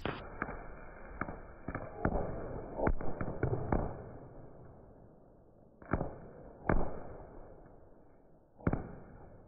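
Diwali firecrackers going off: a quick irregular run of about eight sharp bangs in the first four seconds, then three more single bangs spaced a second or two apart.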